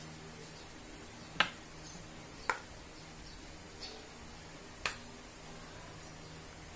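Three sharp clicks, unevenly spaced, with a fainter tick between the second and third: hard plastic and metal parts of a National 12 V cordless drill knocking and clicking together as its chuck and gearbox assembly is handled and fitted back together.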